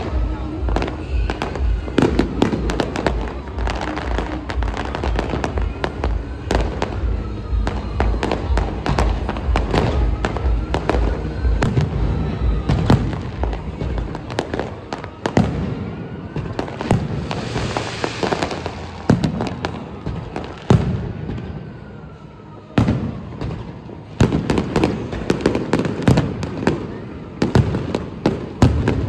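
Fireworks and firecrackers going off: a dense string of sharp bangs and crackling pops, with now and then a short whistle that rises and falls in pitch, and a hissing burst about two-thirds of the way through.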